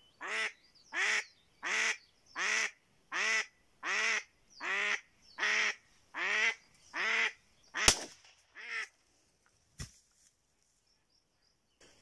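A hen decoy duck quacking a long series of about a dozen calls, each falling in pitch, roughly one every three-quarters of a second, then stopping: the hen's calling that draws drakes. Two sharp clicks come toward the end.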